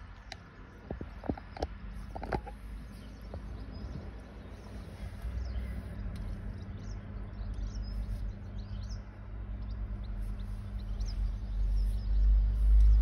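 Low car-engine rumble heard from inside the car's cabin, growing louder near the end as the crossing barriers lift and traffic begins to move. There are a few light knocks in the first couple of seconds, and faint bird chirps in the middle.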